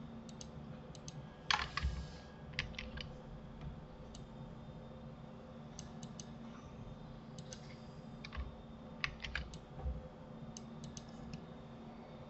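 Computer keyboard keys and mouse buttons clicking in scattered clusters, the loudest group about a second and a half in and another around nine seconds in, over a steady low hum.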